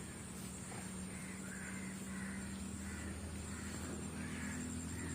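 A string of short bird calls, roughly two a second, over a steady low hum.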